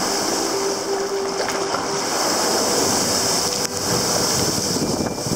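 Sea surf surging and foaming against rock walls around a sea kayak: a steady rush of churning white water, with wind on the microphone.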